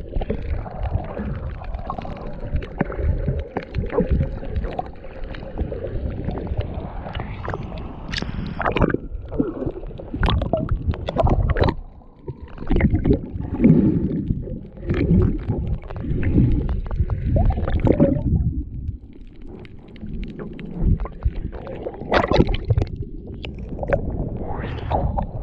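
Muffled underwater water noise picked up by a submerged camera: low, irregular sloshing and rumbling with scattered knocks and surges. Near the end there is a brighter splash as the camera breaks the surface.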